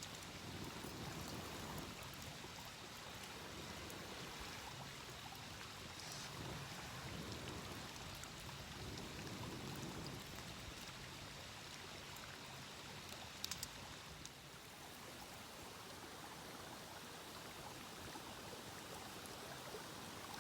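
Steady rush of a stream flowing, with a few sharp clicks about thirteen seconds in.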